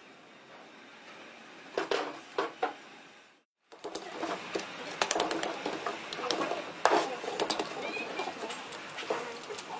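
Rubber mallet tapping a hand-held drift against the copper winding of an electric-motor stator, a quick, irregular run of sharp knocks, knocking the coil end turns into shape during rewinding. A few lighter knocks come before a brief gap about three and a half seconds in.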